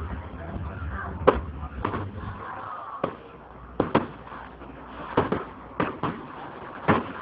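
Aerial fireworks shells bursting overhead: about ten sharp bangs at uneven intervals, some in quick pairs.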